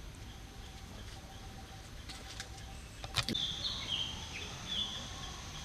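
Quiet rural background with a low steady rumble, a single sharp click about three seconds in, then a bird's short, high chirping notes.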